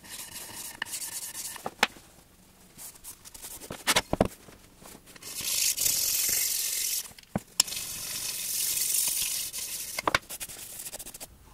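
A flat abrasive stone rubbed back and forth over the machined cast-iron surfaces of a milling vise body, a steady scraping hiss in two long stretches, stoning off burrs before the surfaces are measured. A few sharp knocks come before it as the heavy vise body is handled and turned over.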